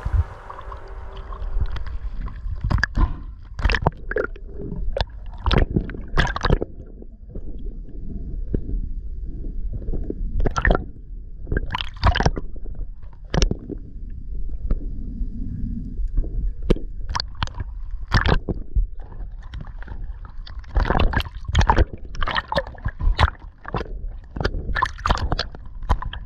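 Water gurgling and sloshing against an action camera held in the sea, heard muffled under a steady low rumble. Many irregular short knocks and clicks run through it, coming thicker near the end.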